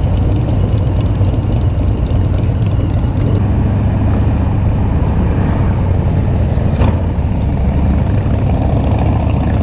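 Harley-Davidson FXDR 114's Milwaukee-Eight 114 V-twin running at a steady cruise, heard from the rider's seat with wind noise over it.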